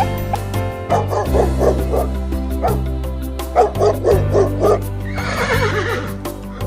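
A dog barking in two quick runs of short barks, then a horse whinnying near the end, over steady background music.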